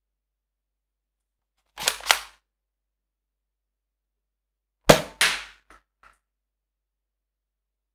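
Nerf dart blaster: a quick double clack of plastic about two seconds in, then a louder double crack about five seconds in, followed by two faint ticks.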